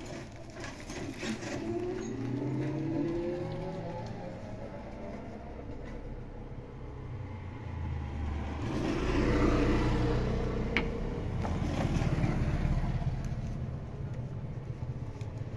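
Motor vehicle engines running and passing, with rising engine pitch in the first few seconds and a louder pass about nine to ten seconds in.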